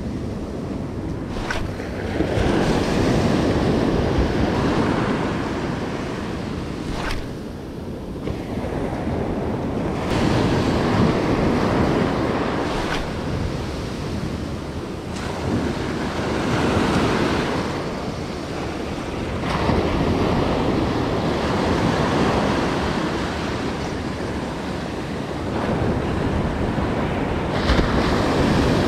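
Ocean surf breaking and washing up a sandy beach, swelling and fading in repeated surges every several seconds.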